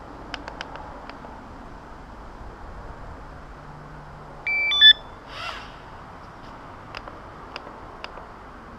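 Devo 7E radio transmitter beeping a quick tune of four or five stepped electronic tones about halfway through, the loudest sound here. A few light clicks come in the first second and again near the end.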